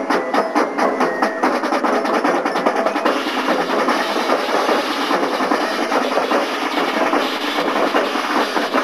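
Marching band playing: a steady drum beat of about four strikes a second at first, then about three seconds in the full band plays loudly and densely.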